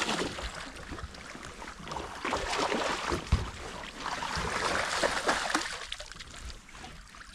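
Water sloshing and splashing around a boat, with scattered small clicks and knocks that rise and fall in bursts.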